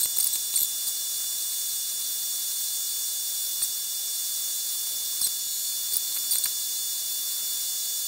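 Milling machine end mill cutting into a metal workpiece: a steady high-pitched whine with a few faint scattered ticks.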